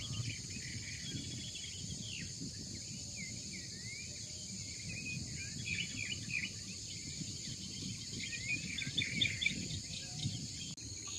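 Outdoor ambience of insects and birds: a steady high insect drone with many short bird chirps throughout, busier near the end, over a low even background noise.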